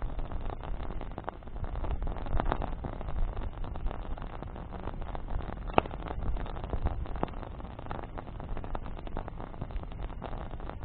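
Wood campfire burning, with dense crackling and snapping from the burning branches and one sharper pop about six seconds in, over a low rumble.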